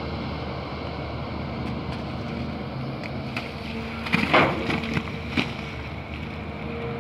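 Volvo EC210 long-reach excavator's diesel engine running steadily as the arm lifts and swings a loaded bucket of mud. A short burst of loud clanks and knocks comes about four to five and a half seconds in.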